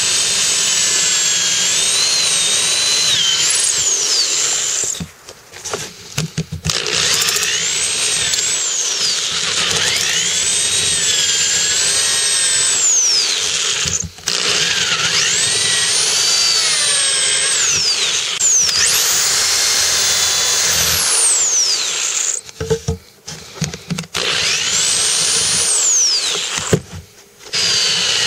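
Corded electric drill with a twist bit boring holes in purpleheart wood: a high motor whine that rises and falls in pitch as the speed and load change, stopping briefly four times between holes.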